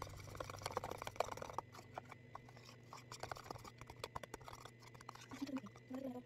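A spatula stirring and scraping a thick, creamy sandwich spread in a plastic tub, making soft, irregular wet clicks and taps against the plastic. A low steady hum runs underneath.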